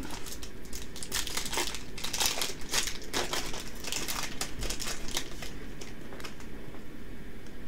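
Foil wrapper of a Yu-Gi-Oh booster pack torn open and crinkled by hand as the cards are pulled out: a run of irregular crackles that thins out near the end.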